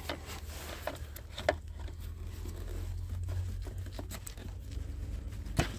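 Pliers working the plastic leak-off connector off a diesel piezo injector's return port: a few scattered small clicks and scrapes, the sharpest click near the end, over a steady low hum.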